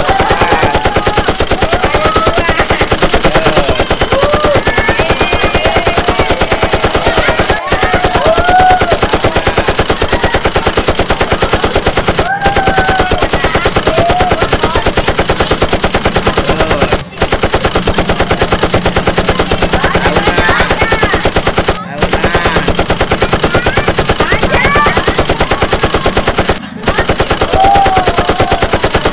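Snare drumroll sound effect: a loud, fast, even roll that breaks off for an instant about every five seconds, with children's voices faintly underneath.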